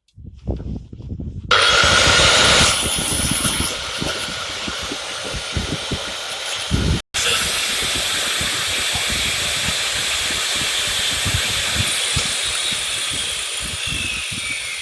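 Abrasive cutting disc of an angle grinder cutting through a steel bolt: a loud, steady grinding hiss with a high whine over it that starts about a second and a half in, breaks off for a moment midway, and whose whine falls in pitch near the end.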